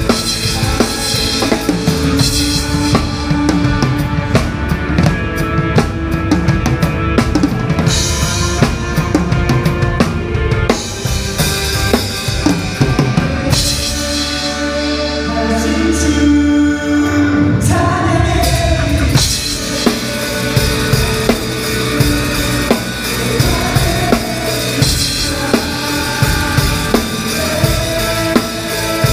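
Drum kit played to a worship song over sustained accompanying music, with bass drum, snare and cymbals. About 13 seconds in the cymbals drop out for a few seconds of quieter held notes, and the full beat with cymbals comes back about 19 seconds in.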